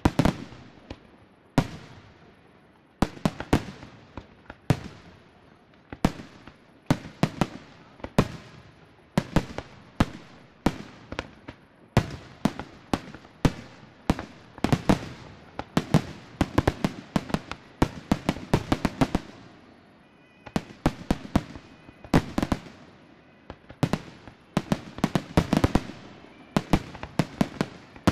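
Aerial firework shells bursting one after another, each a sharp bang followed by an echoing tail. They come faster and overlap more through the second half.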